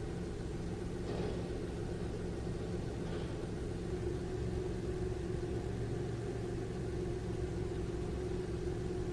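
Ship's engine machinery running with a steady drone and a constant hum, with faint brief knocks about one and three seconds in.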